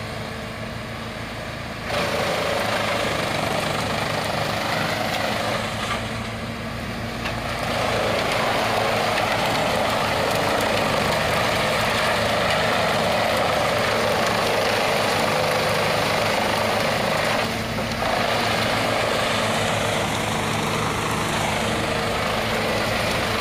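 Bandit wood chipper, driven by a 250-horsepower Caterpillar diesel, chewing up pine branches fed into it. The steady diesel drone runs under a loud grinding of wood that starts about two seconds in and eases off briefly around six seconds in and again just before eighteen seconds.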